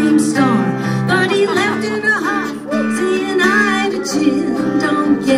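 A woman singing live with her own acoustic guitar accompaniment.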